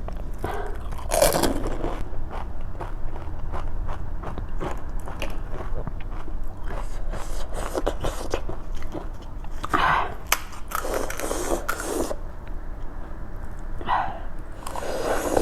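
Close-up eating of panipuri: crisp puris crunching and wet chewing, with many short crackling clicks and a few louder bites.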